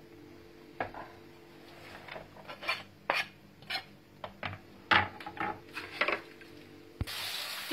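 Kitchen knife scraping and knocking on a plastic cutting board as chopped greens are pushed off into a plastic bowl: a run of irregular light knocks and scrapes, the loudest about five seconds in. Near the end a kitchen tap starts running.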